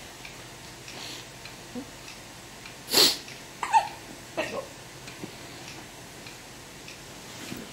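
A young pet hiccups once, sharply, about three seconds in, followed by two short squeaks that fall in pitch.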